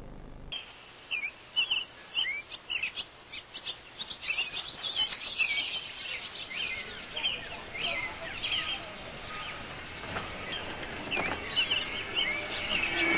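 Small birds chirping, many short, quick calls overlapping, starting abruptly about half a second in and growing busier toward the end.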